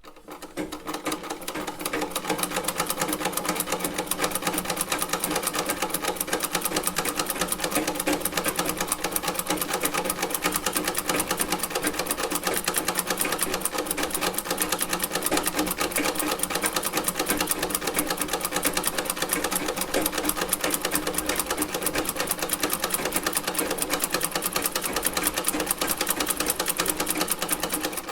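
Vintage sewing machine running at speed, a fast, even clatter of needle strokes. It builds up over the first couple of seconds, then holds steady.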